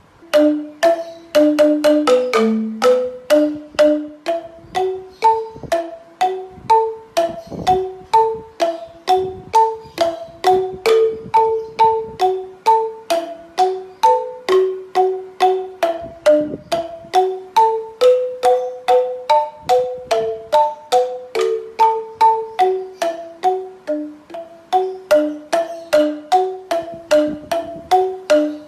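Background music: a melody of short, quickly fading notes at a steady pace of about three a second.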